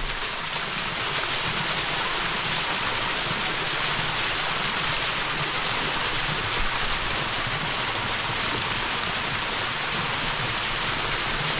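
Steady rushing of water from a rain-fed waterfall, an even unbroken noise.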